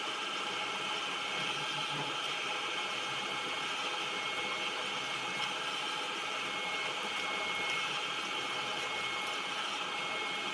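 Manual metal lathe running steadily, its chuck spinning a square steel plate while a boring bar works in the bore. A thin, steady high tone comes in about a second and a half in and holds over the even machine noise.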